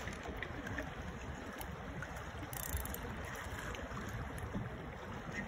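Steady wind rumble on the microphone over the sea, with a hooked fish splashing at the water's surface; one brief, brighter splash about two and a half seconds in.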